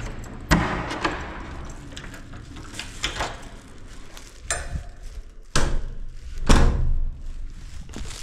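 Keys working the lock of a wooden front door and the door being opened: a series of clicks and knocks, with a loud thump about six and a half seconds in.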